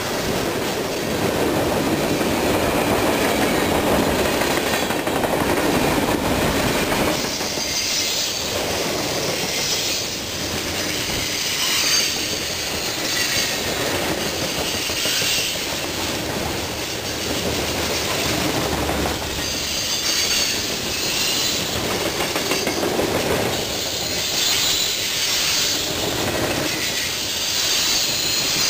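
Freight cars rolling past close by, their steel wheels rumbling steadily on the rails, with high-pitched wheel squeals that come and go every few seconds.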